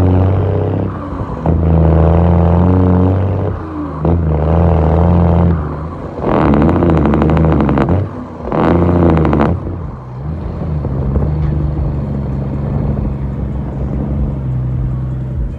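Cummins M11 inline-six diesel running loud from its vertical exhaust stack, with the throttle coming on in repeated bursts that dip in between. The two strongest bursts, about halfway through, rise and fall in pitch. After that the engine settles to a steadier, lower note.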